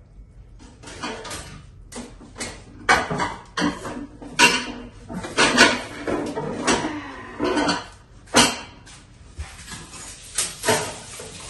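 Cooking utensils scraping and clinking against a pot as stir-fried noodles are scooped out onto a serving tray: a string of irregular clatters, knocks and scrapes.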